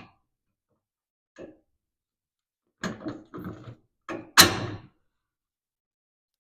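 Spring hangers and hardware being fitted onto a hot rod's front leaf spring: a faint knock, a short run of clattering, then a louder metal clunk with a brief ring about four seconds in.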